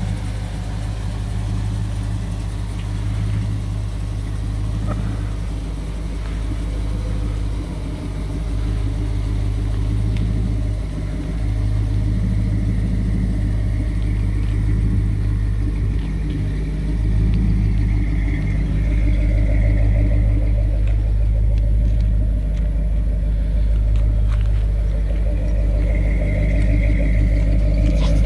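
Ford 429 Cobra Jet big-block V8 idling with a steady low rumble, getting louder near the end.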